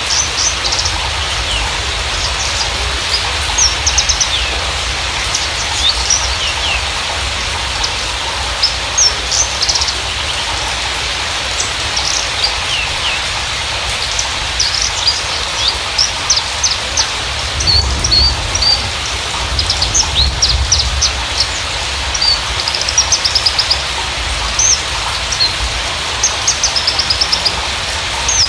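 Javan bushlark (Mirafra javanica parva) singing a long string of quick high chirps, down-slurred whistles and fast rattling trills, over a steady background hiss.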